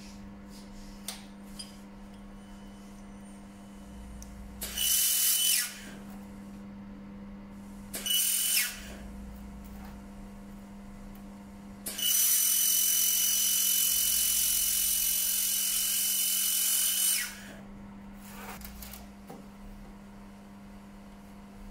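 1500 W handheld fiber laser welder firing on 3.8 mm carbon steel: two short bursts, then a longer run of about five seconds. Each burst is a loud hiss with a steady high whine in it, over a constant low hum.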